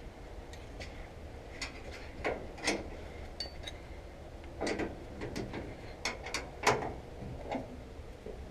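Irregular metal clicks and knocks of hand tools working the bolts that hold a keystock grate in a combine concave, with a louder knock near the end.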